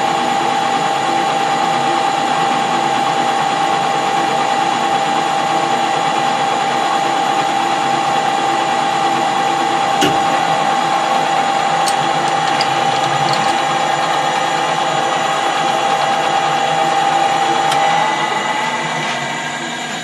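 Metal-turning lathe running, with a steady gear whine from its headstock, dropping away near the end.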